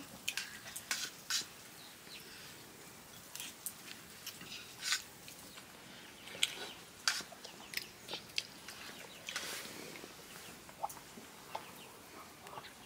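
Chickens clucking now and then, mixed with scattered light clinks and taps of spoons on metal plates and bowls.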